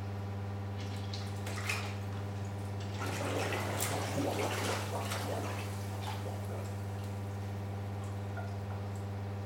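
Water splashing and sloshing in a stainless steel hydrostatic weighing tank as a fully submerged person moves in it, loudest from about three to five and a half seconds in, then settling into smaller drips and splashes. A steady low electrical hum runs underneath.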